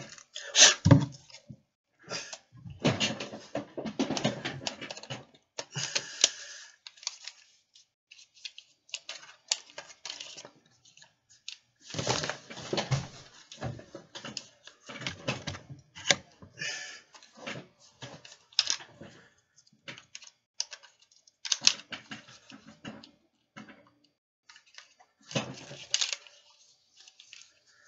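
Handling noise: irregular clicks, taps and rustles as hands fiddle with a small handheld device, coming in bursts with short quiet gaps between.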